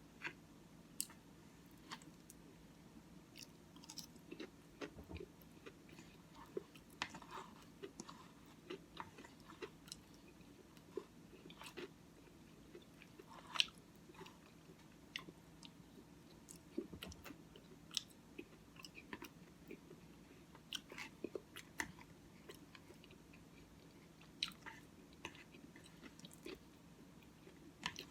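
Faint close-up chewing of Cookie Crisp cereal in oatmeal: scattered small clicks and mouth sounds, several a second at times, over a low steady hum.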